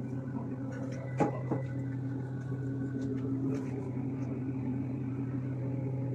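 Steady low machine hum, with a couple of light clicks a little over a second in.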